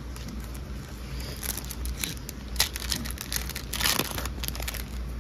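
Foil wrapper of a Pokémon card mini pack crinkling as it is handled and torn open: a run of sharp, irregular crackles starting about a second in, loudest around the middle and again shortly before the end.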